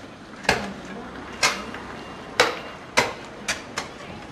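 Hammer blows during stonework: six sharp, irregularly spaced knocks, each ringing briefly.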